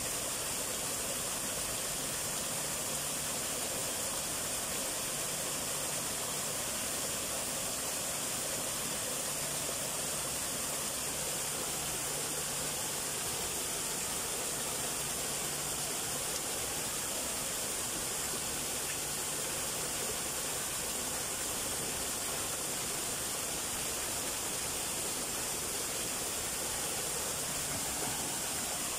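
Small garden waterfall: two thin streams of water falling over rocks and splashing into a shallow pool, a steady, even rush of water.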